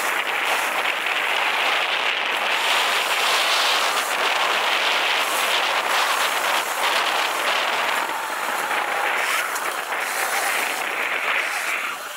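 Sur-Ron Light Bee electric dirt bike with a KO Moto Factory Spec motor being ridden on a dirt trail: a steady rush of riding noise, with a faint motor whine drifting up and down in pitch as the throttle changes.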